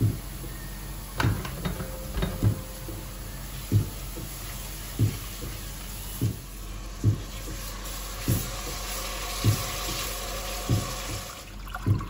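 Flour and tomato paste sizzling in hot oil in an enamelled cast-iron pot while being stirred with a spatula; the hiss grows stronger about two-thirds of the way through. A soft low thump repeats about every second and a quarter underneath.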